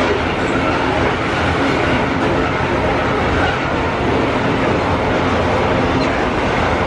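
Loaded iron-ore freight train running up a grade under heavy power: a steady noise of wheels on rail and working diesel locomotives.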